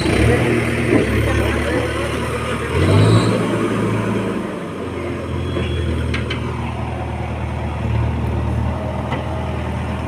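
Diesel engine of a backhoe loader running steadily close by, briefly rising in speed about three seconds in.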